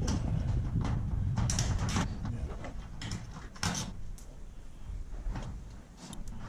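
Metal clicks, knocks and scrapes of hand work fitting a garage door T-handle lock, with a low rumble in the first two seconds.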